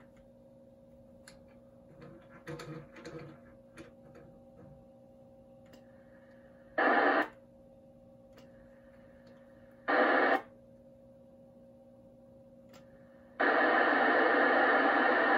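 Amateur-radio receiver static from the transceiver's speaker cuts off abruptly, leaving a faint steady hum and a few soft clicks. The static comes back in two brief bursts about seven and ten seconds in, then returns steadily near the end. This on-off pattern is typical of the receiver muting while the transmitter is keyed for tuning.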